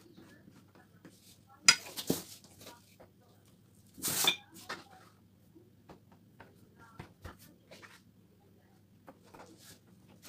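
Kitchen handling sounds: a table knife clinks down onto a plate about two seconds in, followed by a short rustle about two seconds later and faint taps as hands fold margarine-spread dough on a table.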